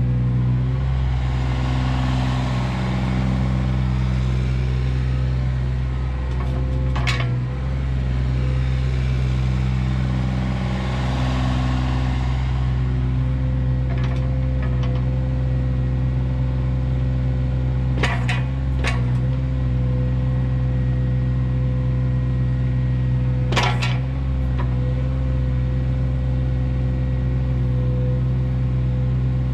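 John Deere 26G mini excavator's diesel engine running steadily under a steady hydraulic whine as the boom and bucket are worked. A rushing hiss swells twice in the first dozen seconds, and a few sharp metal clanks come about seven seconds in, twice around eighteen seconds and again near twenty-four.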